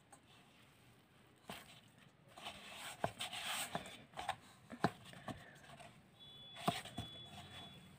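Hands kneading stiff spinach-and-wheat-flour dough, made without added water, in a stainless steel bowl: faint rustling and pressing with a few irregular soft knocks, starting about a second and a half in.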